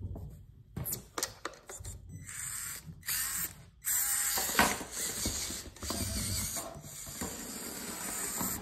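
Traxxas TRX-4M mini RC crawler driving on its newly swapped electric motor: the motor and geared drivetrain whir and whine, stopping and starting a few times as the truck moves off. The new motor runs a lot slower, geared for crawling.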